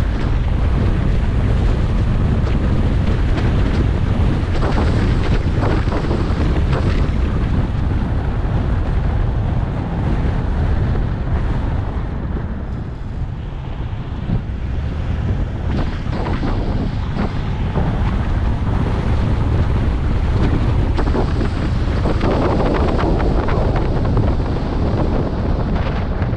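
Wind rushing and buffeting over the microphone of a moving car, over a steady road rumble, easing somewhat about halfway through before building again.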